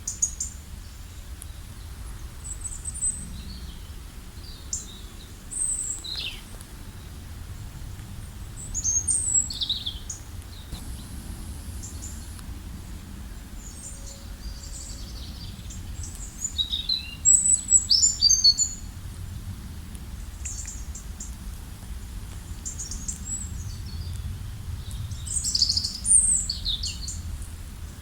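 Songbirds chirping and singing in short, scattered high phrases, with several birds calling at once in bursts, over a steady low rumble.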